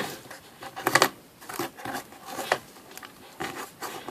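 Scattered knocks, taps and rustles of a homemade vending machine being handled as coins are fed into its slot and rejected. The loudest cluster of knocks comes about a second in.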